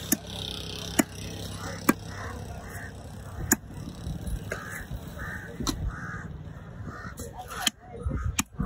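Large fish-cutting knife chopping pieces of red fish on a round wooden block: several sharp chops at uneven gaps of one to two seconds. Midway through, a crow caws repeatedly, about twice a second.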